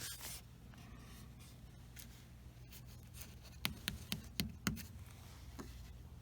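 Handling noise: a short scrape, then a quick run of about five sharp clicks and taps near the middle and one more shortly after, over a steady low hum.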